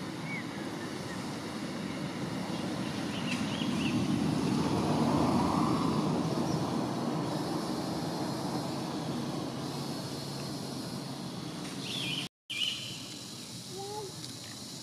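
A vehicle passing at a distance, its noise swelling and then fading over several seconds, with a few faint bird chirps above it. The sound drops out for a moment near the end.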